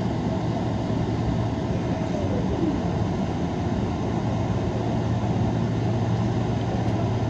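Steady cabin noise of a Boeing 777 taxiing: the jet engines running at low power, heard through the fuselage as a constant low hum and rumble.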